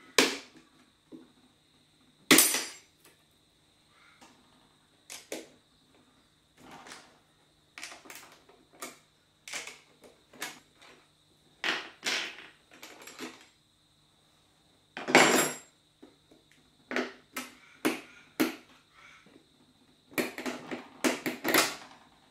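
Screwdrivers prying a metal cover plate off an EV battery module: irregular metallic clicks, clacks and scrapes, with a few sharper knocks about at the start, about two and a half seconds in and around fifteen seconds in, and a quick run of clicks near the end as the plate comes free.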